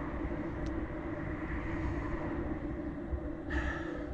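Steady background hum with a held low tone and rumble, and a brief hiss about three and a half seconds in.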